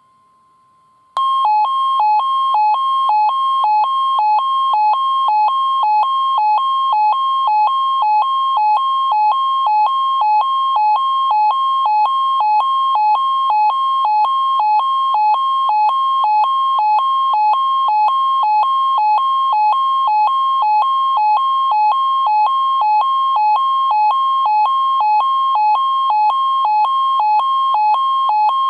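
Midland ER10VP weather alert radio sounding its alert for a NOAA Weather Radio Required Weekly Test: a faint steady tone, then about a second in a loud electronic two-tone alarm that switches rapidly back and forth between a higher and a lower pitch.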